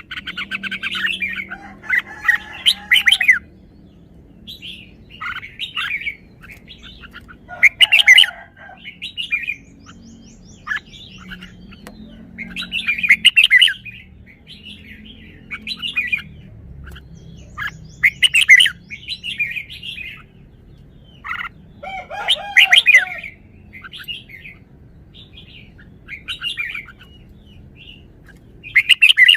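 Red-whiskered bulbul singing: short, bright, warbling phrases repeated every few seconds, with louder full strophes about every five seconds and softer chirps between.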